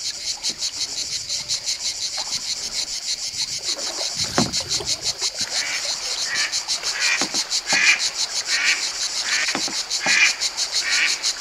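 Chorus of calling animals: a fast, even, high-pitched pulsing throughout, joined from about halfway in by a shorter call repeating about every three-quarters of a second, with a few soft low knocks.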